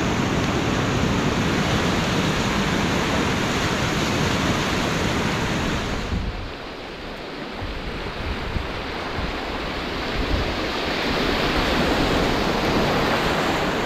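Whitewater rapids on the Ottawa River rushing around a canoe running them, a steady dense roar of water. About six seconds in it drops quieter, then builds again as the canoe nears more whitewater.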